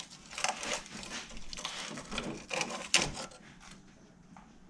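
Items being handled and moved about: a run of irregular clicks, knocks and rustling, with one sharp knock about three seconds in, after which it goes quiet.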